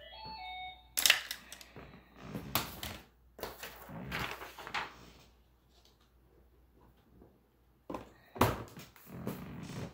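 A short electronic chime of a few notes, then clicks, knocks and rustling as makeup products and their containers are handled. A sharp click comes about a second in and two more just past the eight-second mark.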